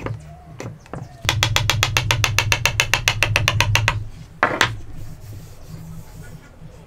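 Hammer tapping a wooden joint together in a quick, even run of sharp knocks, about ten a second for some two and a half seconds, seating the upright piece down into its housing. One more single knock follows about a second later.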